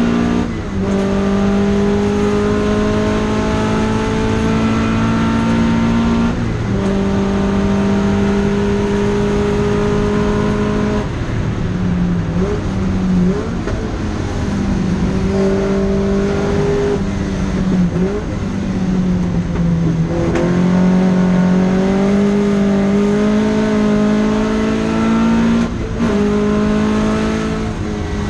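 Datsun Fairlady 2000 (SR311) roadster's two-litre four-cylinder engine running hard at steady revs. Every few seconds a brief dip in the note is followed by a step in pitch, as with gear changes.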